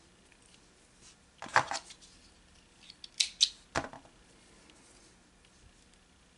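Hands handling yarn and a metal yarn needle close to the microphone: a short burst of scratchy rustling about a second and a half in, then a few sharp scratches and clicks about three to four seconds in, with quiet room tone between.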